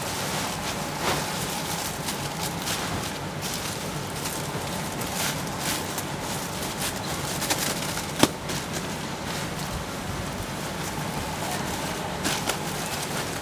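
Clear plastic bag crinkling and rustling in short irregular crackles as a folded white polypropylene coverall is slid into it and the package is handled, over a steady low hum. One sharp click stands out about two-thirds of the way through.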